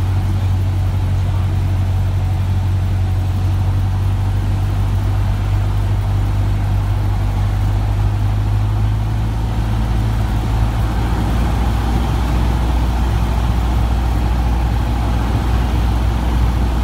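Cessna 150's Continental O-200 four-cylinder engine and propeller heard from inside the cockpit, a loud steady drone. About ten seconds in the engine note drops lower as power is eased back on final approach to the runway.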